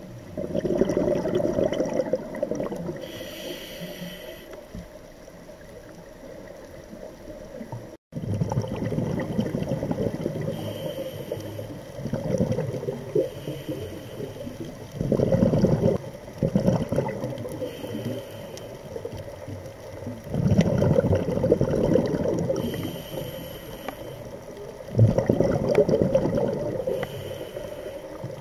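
A scuba diver's regulator underwater: exhaled bubbles rumbling in bursts of one to three seconds, every four or five seconds. A brief high hiss comes between them.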